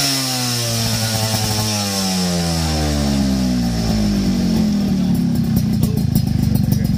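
Suzuki Tornado GS two-stroke engine through a stainless-steel aftermarket racing exhaust, its revs sinking slowly after a blip and settling into a pulsing idle about five seconds in. The owner takes the way it runs as a sign that the standard pilot and main jets need to go up one size.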